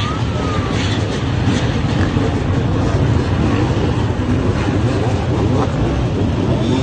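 Many dirt-bike engines running and revving together at low speed in a bunched pack, with overlapping engine notes and one engine's pitch dropping off just after the start.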